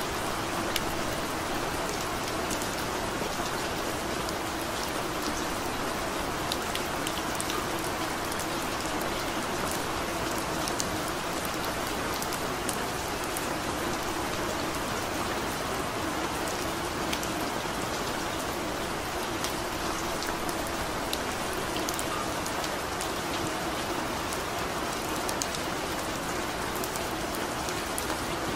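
Steady rain: an even hiss of rainfall, with scattered sharp ticks of single drops.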